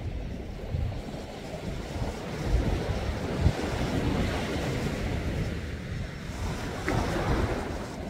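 Sea waves washing in and out, an irregular hiss that swells in the middle and again near the end, with gusts of wind rumbling on the microphone.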